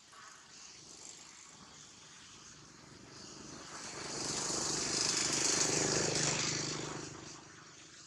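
A vehicle passing by: a rush of noise with a low hum that swells up from a few seconds in, is loudest in the middle, and fades away near the end.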